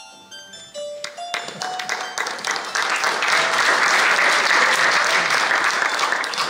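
Audience applauding, building from about a second in to a loud, dense clapping and easing off near the end, over sparse piano notes.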